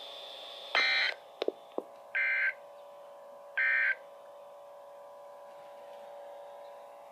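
Weather radio receivers playing the three short SAME digital data bursts that close a NOAA Weather Radio test: the end-of-message code. The bursts come about a second and a half apart, with two sharp clicks after the first and a steady low hum behind them.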